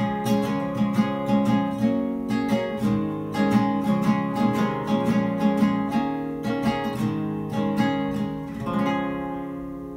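Acoustic guitar playing the closing bars of a song alone, plucked notes in a steady pulse, ending with a final chord about nine seconds in that rings and fades out.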